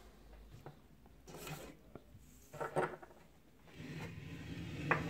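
Soft handling sounds on a tabletop: a glued pack of cylindrical battery cells set down, with a few light knocks and rubs. From about four seconds in a low hum sets in, and a sharp click comes just before the end.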